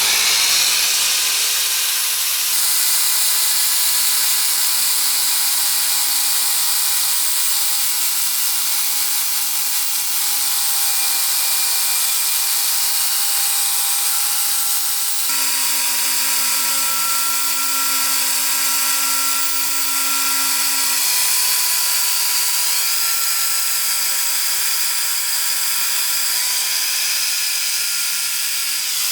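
Electric power tool running continuously against the steel blade, a steady hiss with several high whining tones. The tone changes abruptly about two and a half seconds in and again about halfway through.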